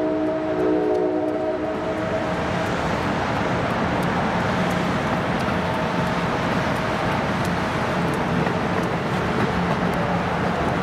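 New Jersey Transit multilevel passenger train passing: a multi-tone horn chord stops about two seconds in, then the steady rumble of the cars rolling along the track, with faint clicks.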